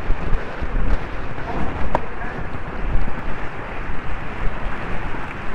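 Wind rushing over a helmet-camera microphone on a galloping horse, with the hooves thudding dully underneath.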